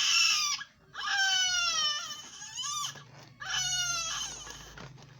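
A newborn baby crying: high-pitched wails, each one to two seconds long, with short pauses for breath between.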